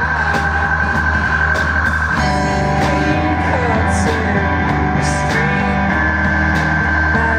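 Street band playing: held horn notes over a steady drum beat, with the melody changing about two seconds in.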